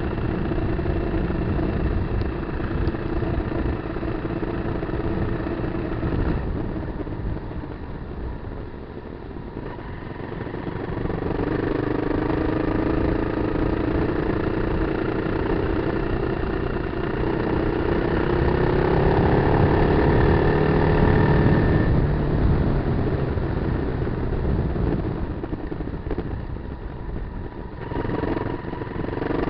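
Kawasaki KLR250's single-cylinder four-stroke engine running off road. It eases off about six seconds in, then pulls with a steadily rising pitch for about ten seconds before dropping back, and picks up again near the end.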